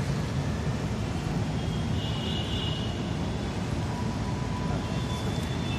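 Steady low rumble of background room noise with no distinct events.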